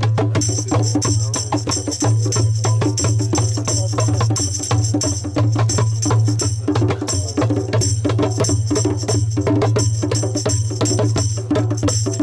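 Music with fast, dense percussion, jingling high up, over a continuous low steady drone.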